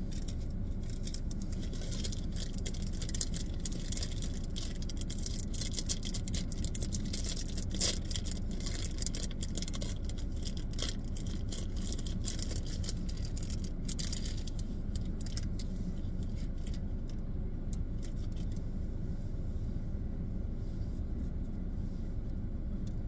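Marshmallow candy packaging being handled and opened, a dense crackle of small clicks with a few sharper snaps in the first half, thinning out later. Under it runs a steady low rumble inside a car.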